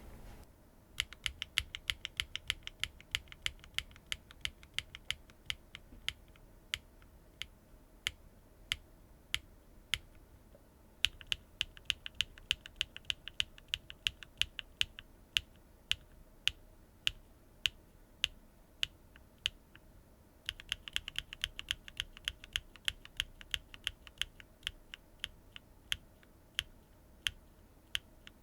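HMX linear mechanical keyboard switches with keycaps being pressed and released for a sound comparison, making sharp clacks. There are three runs of quick presses, near the start, in the middle and about two-thirds of the way through, with slower single presses between them.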